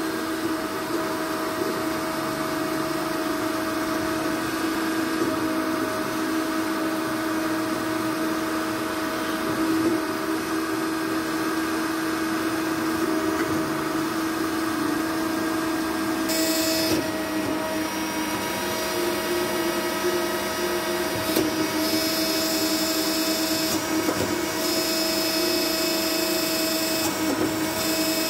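Forte SBA 241 twin-pillar horizontal bandsaw running: a steady motor hum, with a higher whine that comes and goes from a little past halfway.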